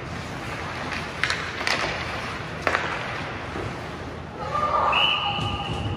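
Ice hockey game in an ice hall: a few sharp knocks of stick and puck over the hall's steady background noise, then a raised voice and a long high steady tone near the end.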